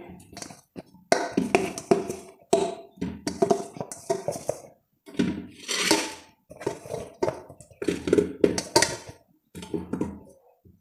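Potatoes dropped by hand one after another into an empty metal pressure cooker, each landing with a dull clunk and a short ring from the pot, at an uneven pace.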